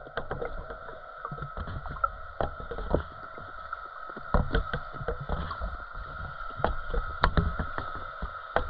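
Underwater sound picked up by a camera submerged beside a floating bait cage: frequent irregular clicks and knocks over a low, shifting rumble of water, with a steady high hum underneath.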